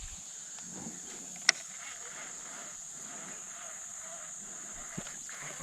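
Steady, high-pitched insect chorus, with one sharp click about one and a half seconds in and a fainter click near the end.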